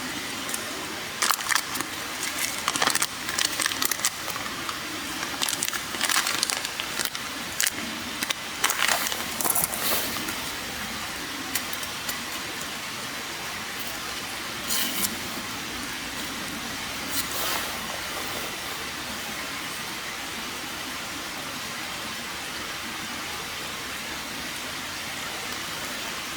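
Campfire burning with a steady hiss and crackles, and a run of sharp metallic clinks and knocks in the first ten seconds, typical of cookware being handled.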